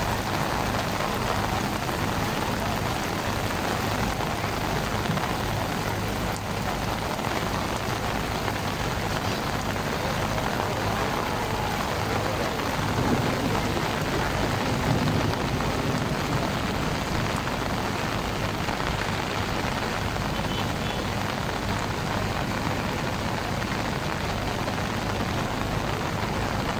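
Heavy rain falling steadily in a downpour, an even, unbroken hiss.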